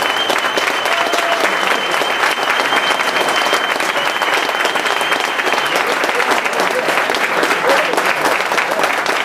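Audience applauding steadily, many hands clapping at once. A thin, steady high tone runs underneath and stops a little over halfway through.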